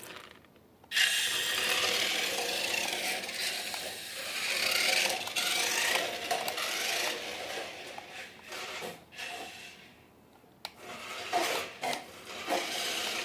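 RC car's electric motor and gearbox whirring at varying speed, wheels spinning and scraping as it strains to climb and can't make it up. The noise drops away about ten seconds in, then comes back in short bursts near the end.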